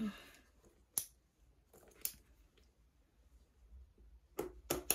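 Handbag and its strap hardware being handled, with a few sharp clicks: one about a second in, another a second later, and a quick run of clicks near the end.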